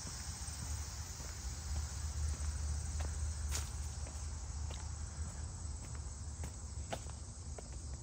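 Steady high-pitched insect chorus from the cornfield, with a few footsteps on a dirt path and a low rumble underneath.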